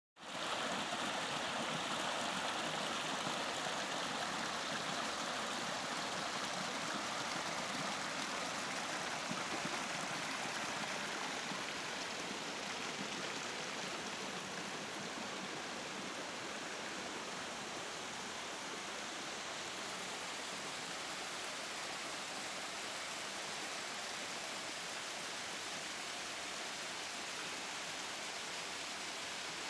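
Small mountain stream running and splashing over rocks and little cascades, a steady wash of water sound that eases slightly after about twelve seconds.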